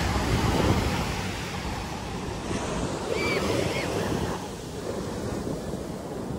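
Ocean surf washing on the beach, mixed with wind buffeting the microphone, swelling and easing. A few short high-pitched calls sound about three seconds in.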